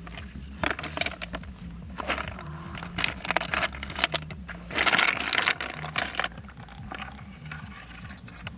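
Freshwater snail shells clattering and clicking against each other in a plastic bucket as snails are dropped in and handled, in several short bursts, the loudest about five seconds in.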